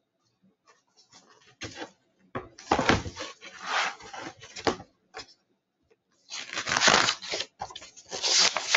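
Paper pages of a hardcover picture book being handled and turned close to the microphone: a series of irregular rustling bursts, louder in the second half.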